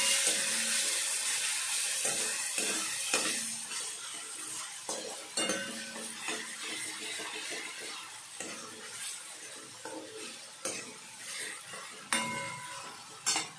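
Chopped tomato and onion sizzling in oil in a metal kadai while a metal ladle stirs and scrapes the pan, with scattered knocks of ladle on pan. The sizzle is loudest at first and dies down over the first few seconds.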